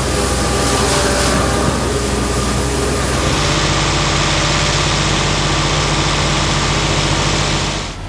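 Penta 4120-HD vertical tub mixer wagon running, its auger and knives chopping a bale of alfalfa hay, over the steady drone of the engine driving it. About three seconds in, the rushing noise of the churning hay drops back and a steady low hum takes over.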